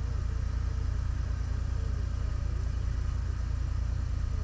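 An engine idling steadily: an even low rumble with no change in speed.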